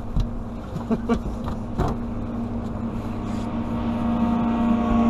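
Outboard motor of a bass boat running steadily nearby, its hum growing louder through the second half as it comes closer. A few sharp knocks sound in the first two seconds.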